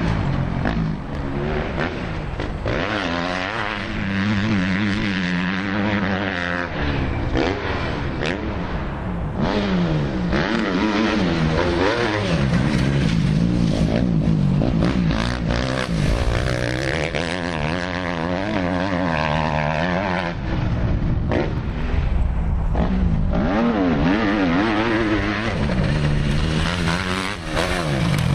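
Motocross bike engines revving up and down again and again as the bikes accelerate out of turns and over jumps on a dirt track.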